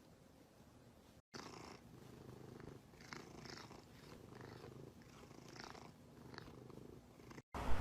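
Domestic cat purring, a faint steady rhythmic rumble starting about a second in.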